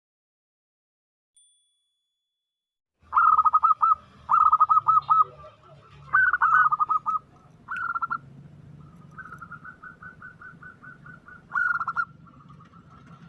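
Zebra dove (perkutut) calling: phrases of rapid staccato coos starting about three seconds in, followed later by a softer, quicker run of notes.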